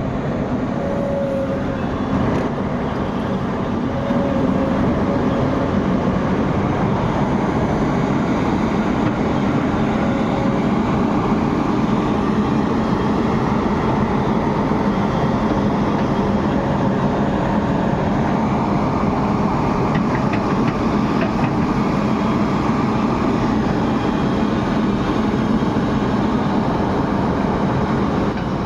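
Excavator working: a steady drone of its diesel engine and hydraulics, getting louder about four seconds in and holding there.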